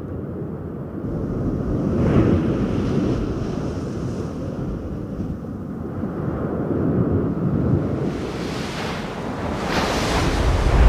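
Ocean surf: a continuous wash of breaking waves that swells and eases, building again toward the end into a deeper rumble.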